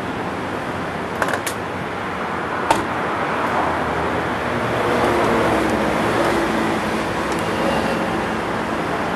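Steady traffic and street noise, with a few sharp clicks from handling a car's door and hood, about a second and a half and nearly three seconds in.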